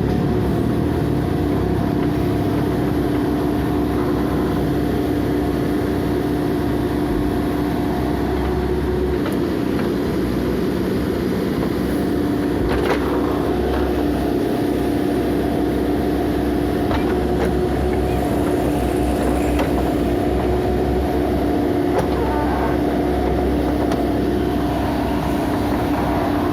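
Diesel engine of a heavy demolition machine running steadily, with a few short knocks, the clearest about halfway through.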